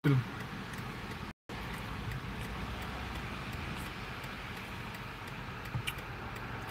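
Steady street traffic noise as vehicles pass close by on the road. A short, loud sound opens it, and the audio drops out briefly about a second and a half in.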